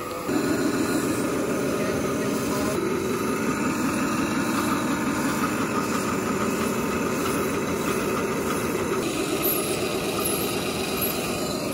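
1-inch-scale live steam Pacific locomotive running along the track, a steady, busy mechanical running sound that comes in abruptly just after the start and shifts in tone about nine seconds in.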